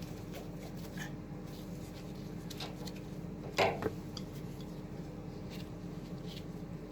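Wrench turning a brass hose cap down onto a water heater's drain ball valve: scattered small metallic clicks and scrapes, with one louder clank about three and a half seconds in.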